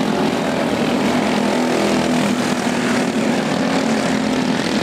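Go-kart engines running steadily at racing speed, a continuous buzzing drone with no break.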